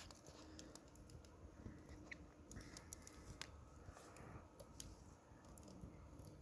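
Near silence, with faint, scattered crackles and ticks from the fire under the popcorn pan.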